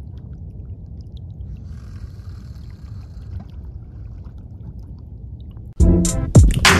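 Low, steady rumble of wind and water noise on a small fishing boat. About six seconds in, electronic music with a heavy beat and sliding bass notes starts abruptly and is much louder.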